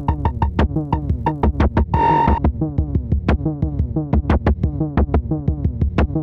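Electronic drum pattern from the Elastic Drums drum-synthesizer app: fast, evenly repeated synthesized drum hits, many dropping in pitch, with a short noisy burst carrying a steady high tone about two seconds in.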